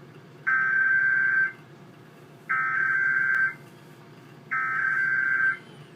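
Emergency Alert System SAME header: three one-second bursts of digital data tones, about a second apart. This coded burst sequence opens an EAS alert broadcast and carries its event, area and origin codes.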